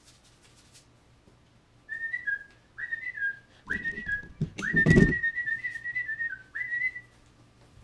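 A man whistling a short tune in several brief phrases. A loud bump and rustle of handling noise comes about five seconds in.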